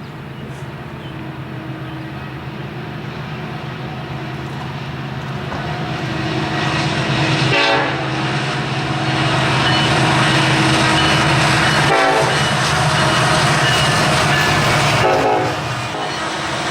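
Diesel locomotive approaching with its engine growing louder. Its air horn sounds in long blasts from about halfway through, with brief breaks between them.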